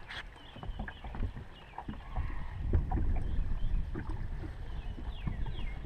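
Steady low rumble of wind and water around a boat, with scattered small knocks and clicks as a fish is handled in a landing net on the deck. A few faint high falling chirps sound near the end.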